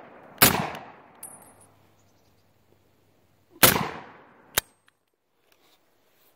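M1 Garand rifle firing blank cartridges through a muzzle-mounted blank adapter: two shots about three seconds apart, each with a short echo. About a second after the second shot comes a sharp metallic clink.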